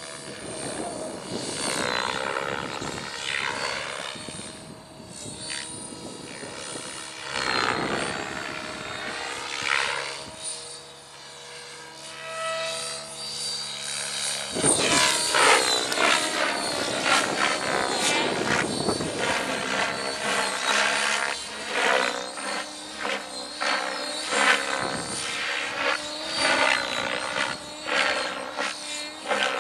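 Electric Blade 700 X Pro RC helicopter flying 3D aerobatics: the rotor blades' whoosh and the motor's whine swing up and down in pitch and loudness as it turns and climbs. It is loudest in the second half, with quick pulsing chops from the blades.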